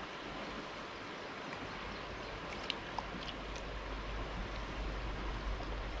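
Fast-flowing river water rushing steadily over rocks, running high, which the man puts down to generators upstream pumping water through. A couple of sharp clicks come about three seconds in, and a low rumble grows in the second half.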